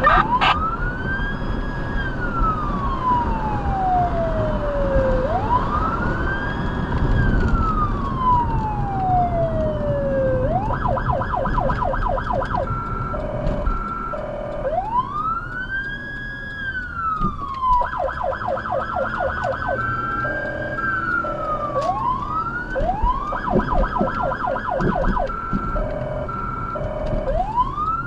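Electronic emergency-vehicle sirens on response: a slow wail rising and falling every few seconds, switching to a fast yelp three times. A second tone alternates high-low alongside each yelp, over the car's road noise.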